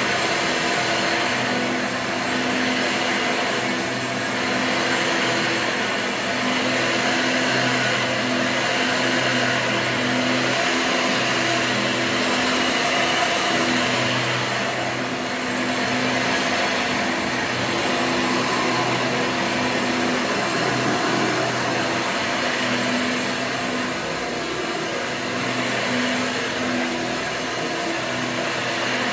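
A 1996 Hoover Convertible upright vacuum cleaner, its motor fitted with a 20-bladed fan, running steadily: a loud rush of airflow over a low motor hum.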